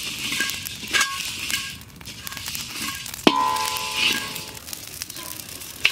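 Flat metal spatula scraping through black peppercorns and fennel seeds as they dry-roast in a large metal kadai, the seeds rattling against the pan. About three seconds in, the spatula strikes the kadai with a clang that rings on for over a second.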